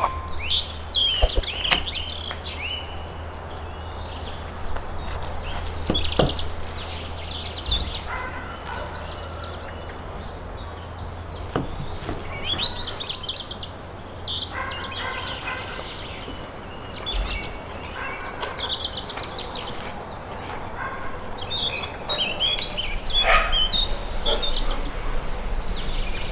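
Small birds chirping on and off in quick rising and falling notes, over a low steady rumble with a few scattered clicks.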